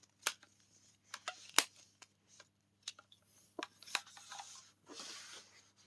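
Handling noises from a hair dryer and its cord being unpacked: a few sharp plastic clicks and taps spread out, with a short rustle near the end.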